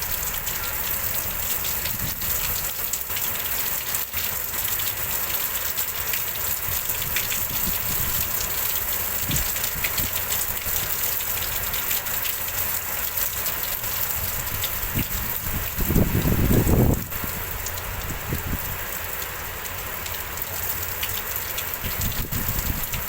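Heavy rain pouring down in a windstorm, a steady hiss. About two-thirds of the way through, a loud low rumble lasts about a second.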